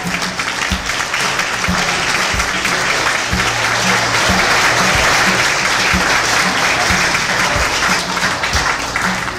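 Wedding guests applauding, the clapping swelling in the middle and dying away near the end, over music with a steady beat.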